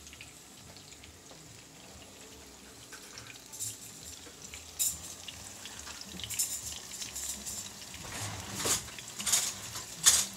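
Plantain slices frying in hot oil in a skillet: a steady sizzle with sharp crackles and spatters that come more often in the second half.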